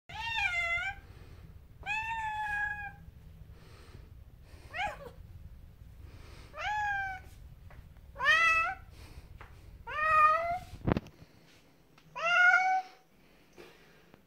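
Domestic cat meowing loudly and repeatedly, about seven long meows a second or two apart, while being carried to a bath against its will. A single sharp click comes about eleven seconds in.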